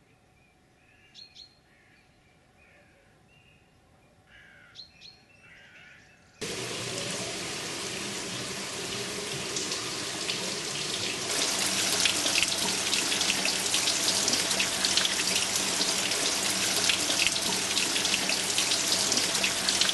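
A small bird chirps a few times over near-quiet. About six seconds in, water pouring over a concrete outlet lip into a pool starts splashing steadily, and it grows louder about five seconds later.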